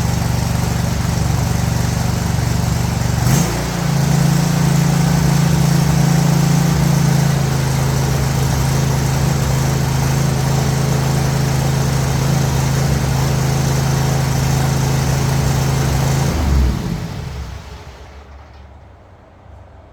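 Toro Titan Max zero-turn mower's engine running steadily, with a brief dip and change in its note about three seconds in; about seventeen seconds in it is switched off and runs down to a stop. The owner says it doesn't run the greatest and seems to have a miss.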